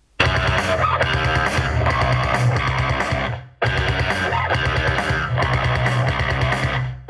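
Tronsmart Bang portable Bluetooth speaker playing rock music with guitar and drums at maximum volume. The music breaks off briefly about three and a half seconds in and again near the end.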